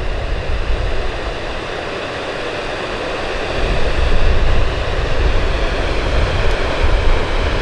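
Kepler Cascades waterfall: a steady rush of falling water, with wind buffeting the microphone in low, uneven gusts.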